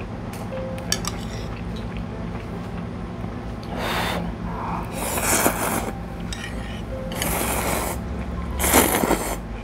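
Ramen noodles slurped from chopsticks, four wet slurps in a row about every second and a half, the last the loudest, with a light click of chopsticks against the bowl about a second in.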